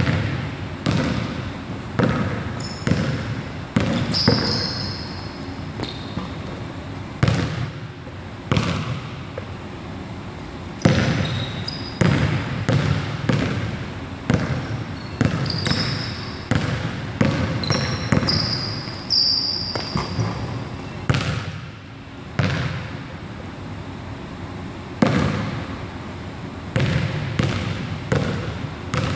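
A basketball being dribbled on a hardwood gym floor, bounces coming irregularly about once a second, each echoing in the large hall, with short high sneaker squeaks on the floor now and then.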